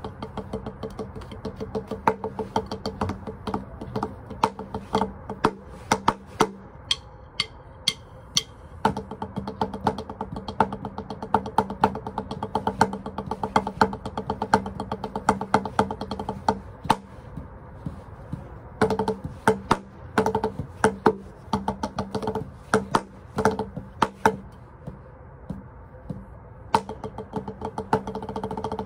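Wooden drumsticks played freestyle on a drum practice pad: fast runs of sharp, dry stick strikes with loud accents, thinning out to sparser hits here and there.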